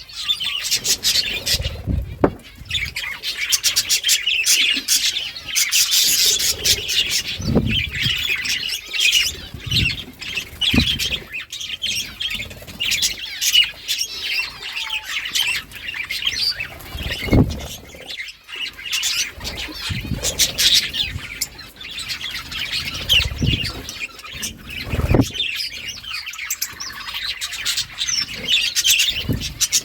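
Several budgerigars chirping and chattering together in a continuous, busy warble, with scattered brief low thumps.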